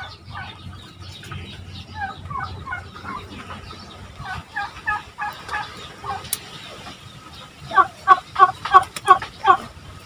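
Domestic turkeys calling: short pitched notes repeated several times a second, with a louder, quicker run of calls near the end.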